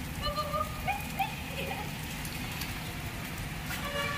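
Steady rain falling, with a few short, faint pitched sounds in the first second and a half.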